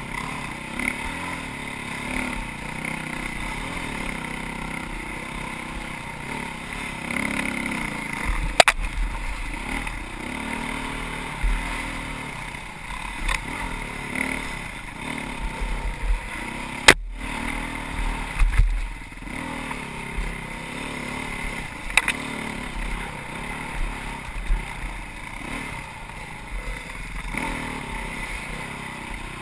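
Dirt bike engine running and revving up and down as it rides a woods trail, heard from the bike itself, with occasional sharp knocks and a momentary gap in the sound just past halfway.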